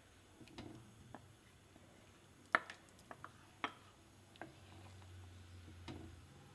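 Wooden spatula tapping and knocking against a pan while rice flour paste is poured into simmering bamboo shoot broth and stirred in: a scatter of sharp taps, the loudest about two and a half seconds in. A low steady hum comes in at about four and a half seconds.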